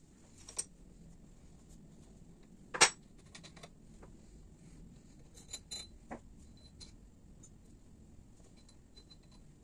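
Metal clinks and knocks from a motorcycle front fork tube and its parts being handled on a workbench: one sharp metallic clink about three seconds in, with a few lighter clicks around it.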